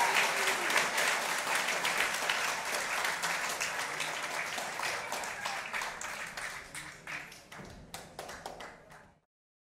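Theatre audience applauding, dense at first, then thinning out and dying away into scattered claps before cutting off near the end.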